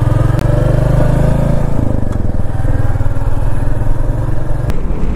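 Royal Enfield Meteor 350's single-cylinder engine running close up under way. Its note rises a little over the first couple of seconds, then settles.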